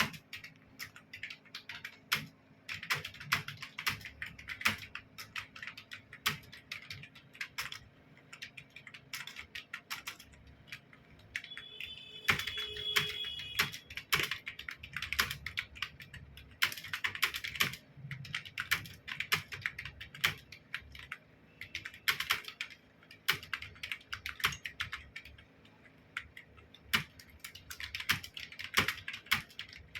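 Fast typing on a computer keyboard: a continuous, irregular stream of key clicks in quick runs with brief pauses.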